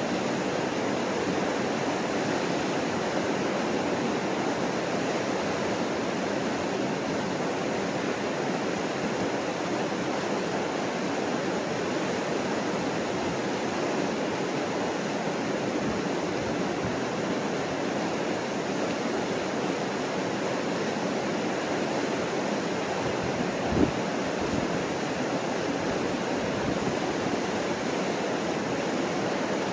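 Broad stretch of the Mississippi River rushing over the rock falls at Chain of Rocks: a steady, even water noise. A brief low bump on the microphone comes about three-quarters of the way through.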